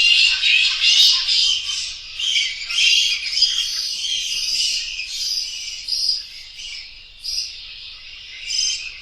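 Bats squeaking and chittering, many high-pitched squeaks overlapping at first, then thinning to separate calls in the second half.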